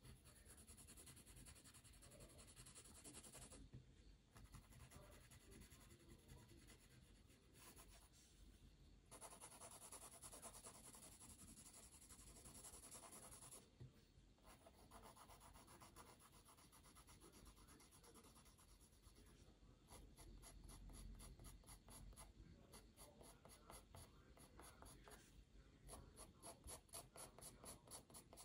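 Faint pencil strokes scratching on paper: long passes with short pauses, turning into quick, evenly repeated back-and-forth strokes over the last third.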